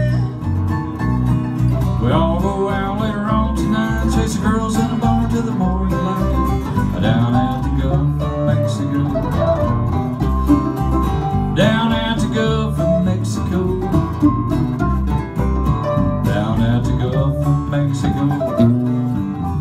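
Acoustic guitar and mandolin playing together live: an instrumental break in an upbeat country song, with the mandolin's quick picked notes over the guitar's rhythm.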